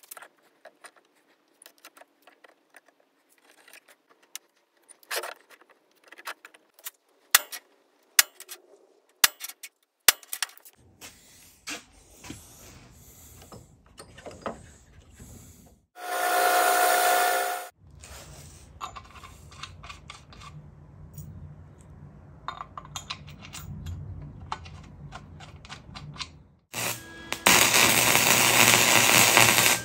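Metal parts clinking and knocking on a steel-strewn workbench, a power tool running steadily for about two seconds midway, then about three seconds of welding arc crackle near the end, the loudest sound.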